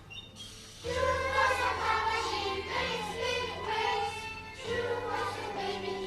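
Music with singing voices, starting about a second in after a brief pause.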